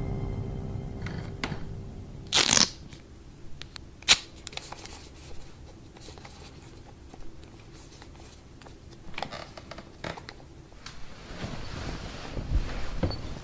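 The tail of scary music dies away, followed by a short thump and a few sharp clicks of a wall light switch. Near the end comes a rustle of bedclothes as someone climbs into bed.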